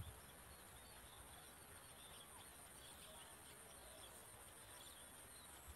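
Near silence with a faint, steady high-pitched insect drone, and a few faint short chirps.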